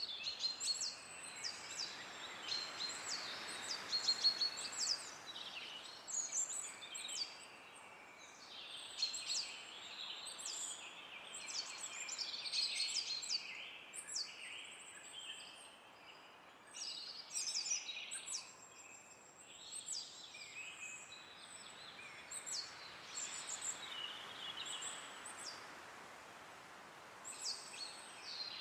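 Songbirds chirping and calling in quick, high notes throughout, over a soft rush of wind in the trees that swells and fades a few times.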